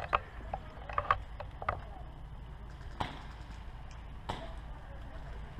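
Airsoft guns firing scattered single shots: a few sharp clicks in the first two seconds, then two louder snaps about three and four seconds in.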